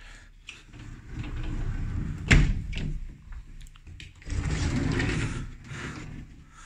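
A sliding wardrobe door rolls along its track and knocks against its stop about two and a half seconds in, then slides again for about a second.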